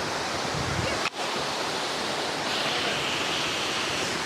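Waterfall rushing steadily, a continuous noise of falling water, with a momentary break about a second in.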